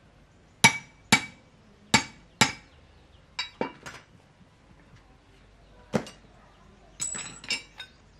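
Sharp metal-on-metal knocks with a short ringing tail as a steel rod and a motorcycle front-fork tube are struck together by hand. Four strong strikes come in the first two and a half seconds, then lighter, irregular knocks and a quick cluster near the end.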